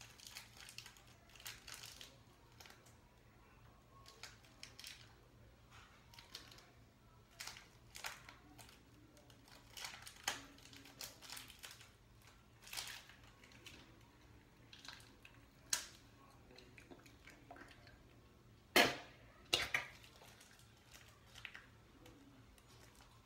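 Small clear plastic Shopkins packet crinkling and crackling in the fingers in short, scattered bursts as it is pulled and pinched in an effort to tear it open, with a couple of louder crackles about three-quarters of the way through. The packet does not give.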